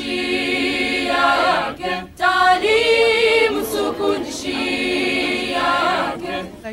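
A group of young people singing together unaccompanied, holding long notes, with a short break about two seconds in.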